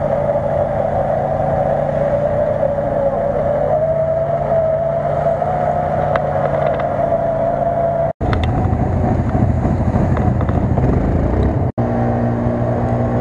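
Nissan Patrol's engine revving hard and held at high revs as it ploughs through deep mud, a steady high note that climbs slightly about four seconds in. After an abrupt cut about eight seconds in, rougher, lower engine noise takes over, and after a second cut near the end a quad bike's engine runs with a steady low hum.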